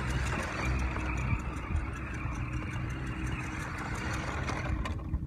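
Toy monster truck's small motor and gears running steadily, its tyres scrubbing on the ground as it spins in reverse donuts. The sound drops off suddenly near the end.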